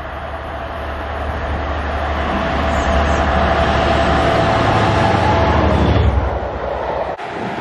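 A Class 47 diesel locomotive's Sulzer twelve-cylinder engine working as it hauls coaches towards the listener. It grows steadily louder, with a steady whine over the engine note, up to its passing about six seconds in. After that the engine fades and the coaches roll by, until the sound cuts off suddenly near the end.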